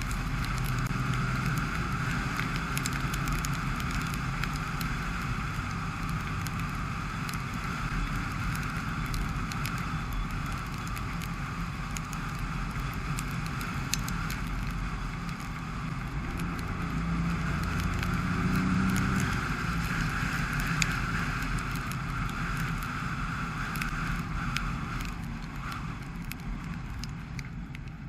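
Dacia Sandero Stepway driving on a rain-wet road: steady engine hum and tyre hiss, with scattered small ticks. The engine note swells for a couple of seconds about two-thirds of the way through, and the sound eases off slightly near the end.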